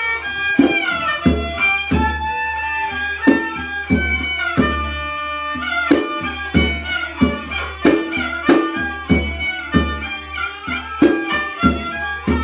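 Khmer kantrum folk music: a bowed fiddle melody over a steady hand-drum beat of about three strokes every two seconds.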